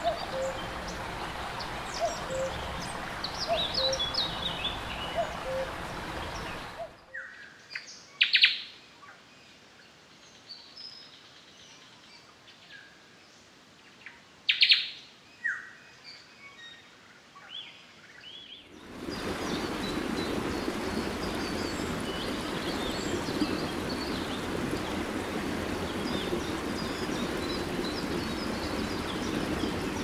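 Small birds chirping and calling over a steady rushing background. The rushing drops away for about twelve seconds in the middle, leaving a few loud, clear single calls, then comes back stronger.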